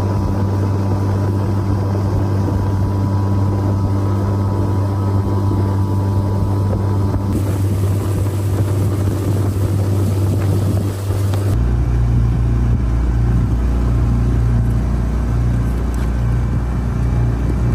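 Boat motor running steadily under way, with water rushing along the aluminium hull and wind on the microphone. The engine's tone changes abruptly twice, at about seven and eleven seconds in.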